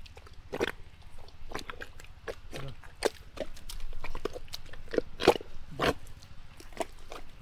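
Hands working wet pond mud: a series of irregular squelches and slaps, about one or two a second.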